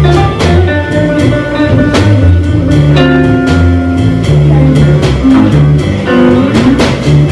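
Jazz trio of jazz guitar, upright double bass and drum kit playing a blues, the guitar and plucked bass notes over steady cymbal strokes.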